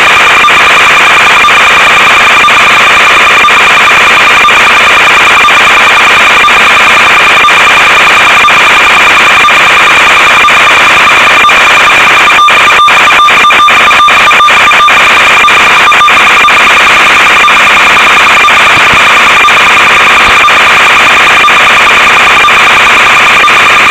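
Loud, steady electronic buzz and hiss with a high whine, the noise on an analog FPV video link's audio channel. A burst of clicks and crackles comes about halfway through.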